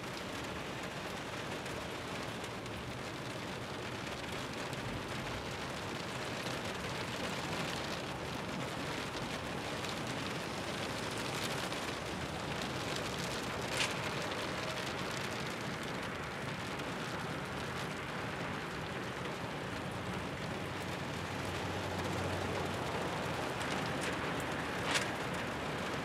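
Steady rain falling, an even hiss, with two sharp clicks, one about halfway through and one near the end.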